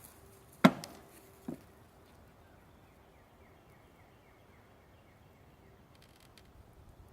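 Two sharp knocks about a second apart, the second fainter, as a bee package is handled and worked open, followed by a faint steady hum.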